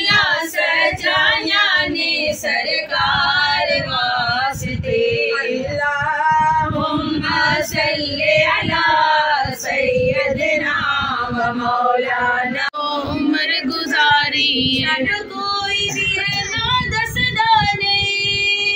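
Women's voices singing a naat, a devotional song in praise of the Prophet, together in Punjabi/Urdu, without instruments.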